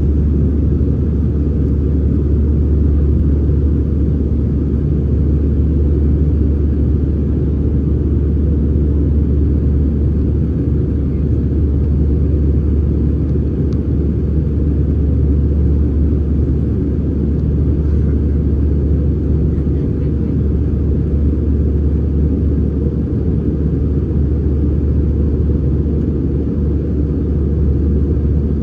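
Steady deep rumble inside the cabin of an Airbus A319-111 in flight, from its CFM56 engines and the airflow, unchanging throughout.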